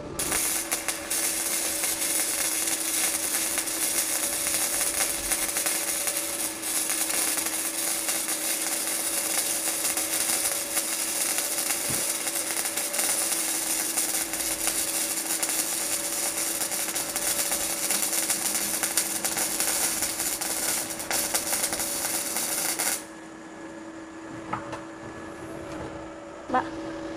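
Gasless MIG welding arc from a Protech MIG 200i inverter welder, crackling and sputtering as it lays beads on thin 1 mm galvanized box steel. It runs for about 22 seconds with a few short breaks between passes, then stops near the end.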